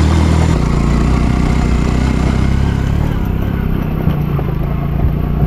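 Motorcycle engine running while riding a rough dirt track, with a few short knocks in the second half as the bike jolts over the bumps.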